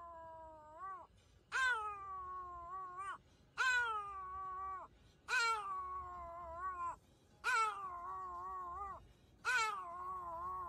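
A small fluffy dog howling in a series of drawn-out yowls, about one every two seconds. Each starts sharply, slides down in pitch and turns up again at the end.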